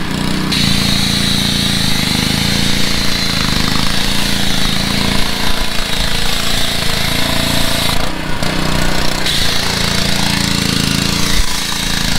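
Gas pressure washer's small engine running steadily while the foam cannon on the wand sprays soap with a hiss; the spray hiss breaks off for about a second roughly eight seconds in as the engine keeps running.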